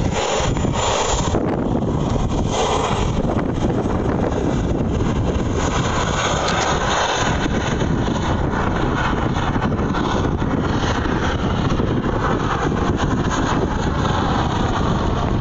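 Large radio-controlled Mi-24 Hind model helicopter flying past and climbing overhead, its engine and rotors running steadily, with wind buffeting the phone's microphone.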